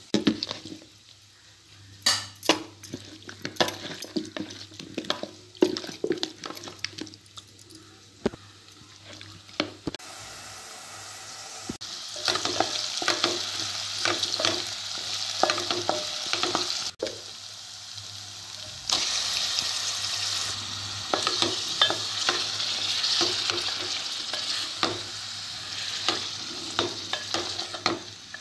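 Spoon knocking and scraping in stirring, at first as scattered clicks. From about twelve seconds in, tomato-onion masala frying in oil in a steel pot gives a steady sizzle, with the spoon scraping and clattering against the pot as it is stirred; the sizzle grows louder near the end as chicken is stirred in.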